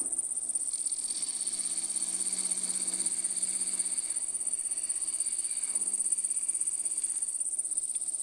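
Wood lathe running with a steady high-pitched whine, with a carbide tool cutting a chamfer on a bois d'arc duck call barrel.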